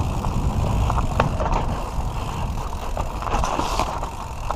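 Santa Cruz V10 carbon downhill mountain bike riding down a rough, bumpy dirt track: a steady low rumble of tyres and wind on the microphone, with many sharp clicks and rattles from the bike over the bumps.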